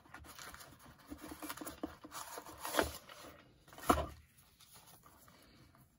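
Sheets of printed paper rustling as they are shuffled and handled, with two louder, sharp rustles about a second apart near the middle.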